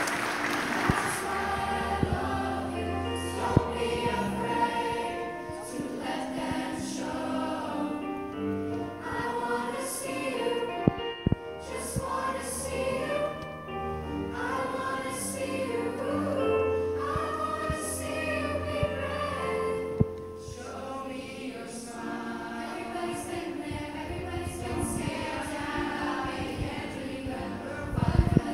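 Mixed middle-school show choir singing in parts, several sustained vocal lines at once. A few brief knocks stand out, and it swells sharply right at the end.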